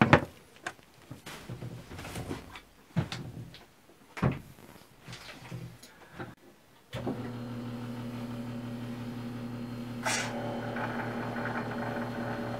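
Clicks and knocks of plastic tubing being handled, then a Shurflo 2088 on-demand diaphragm water pump starts about seven seconds in and runs with a steady hum. About ten seconds in, a hiss of water running from the kitchen faucet joins it as the newly installed pump is first tested.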